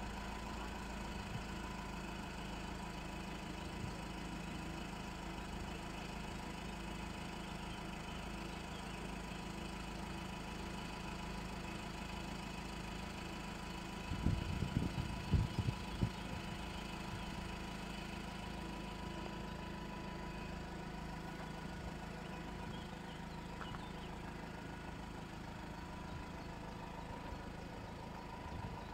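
Steady low hum of engines idling, as of vehicles waiting at the closed level crossing, with a short run of dull low thumps about halfway through.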